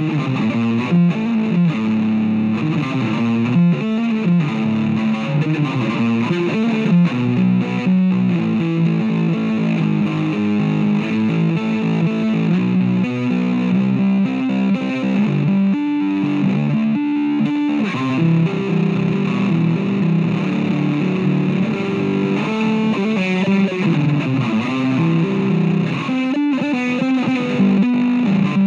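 Four-string electric bass guitar played fingerstyle: a continuous line of plucked notes changing pitch in quick succession.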